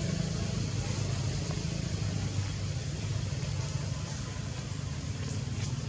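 Steady low rumble of a running motor-vehicle engine, with a few faint clicks near the end.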